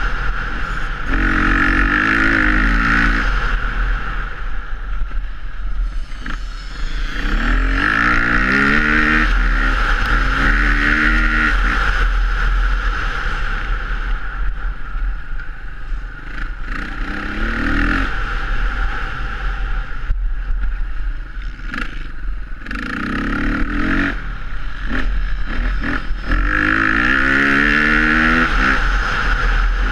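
Dirt bike engine, heard from on the bike, revving up and backing off again about six times as the rider accelerates along the track, its pitch climbing with each pull.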